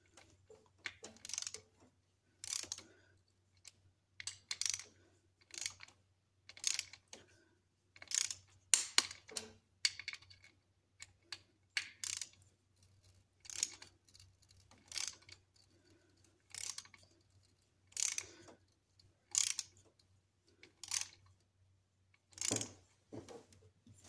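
Torque wrench ratchet clicking in short back-and-forth strokes, about one every second and a half, as it drives the T20 Torx screws of a 3-bar MAP sensor down on a 3.5L EcoBoost intake.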